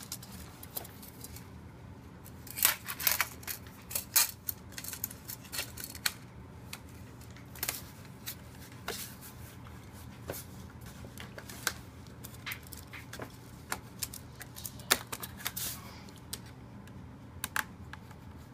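Irregular sharp plastic clicks and taps from an HP EliteBook 8540P laptop's hard-drive access plate as it is slid into place and pressed down by hand, over a faint steady hum.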